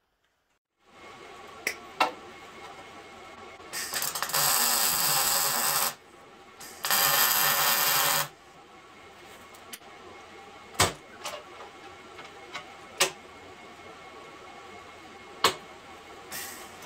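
Welder laying two spot welds through the drilled holes of a steel reinforcement plate on a truck frame rail, each a steady burst of arc noise lasting about two seconds. Then a few scattered sharp clicks and knocks.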